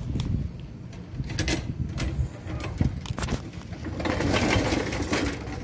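Hydraulic floor jack being worked under a golf cart: scattered metal clicks and knocks, then a longer rattling scrape about four seconds in.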